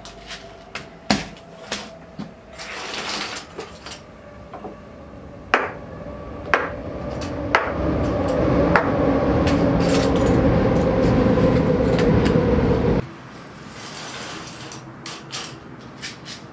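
Plastic disposable razors and pill bottles clicking and knocking on a countertop as they are handled and sorted, in scattered sharp knocks. In the middle a rushing noise swells up to become the loudest sound and cuts off abruptly a few seconds before the end.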